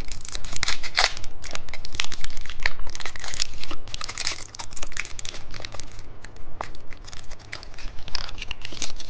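Plastic chocolate wrapper being torn open and crinkled: a dense run of irregular crackling rustles with a short lull about halfway through.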